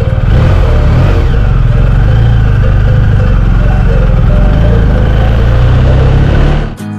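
BMW R1250GS boxer-twin engine running on the road, its pitch rising and falling with the throttle, over steady wind noise. It cuts off abruptly near the end as guitar music starts.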